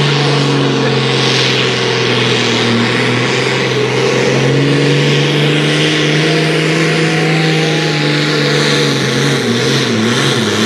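Diesel engine of a sport-class pulling tractor held at full throttle under heavy load as it drags a weight sled, a loud, steady drone. Near the end the engine note wavers and drops in pitch.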